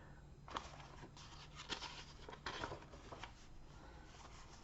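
Faint paper rustling and small clicks, a picture book's pages being handled in a quiet small room.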